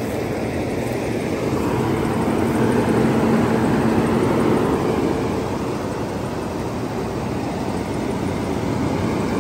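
School bus engine idling steadily, a continuous low hum.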